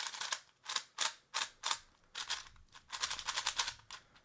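Fangshi GuangYing 3x3 speed cube being turned by hand: plastic layers clicking and clacking as they turn. Single turns come about a quarter to half a second apart, with a quick run of turns about three seconds in.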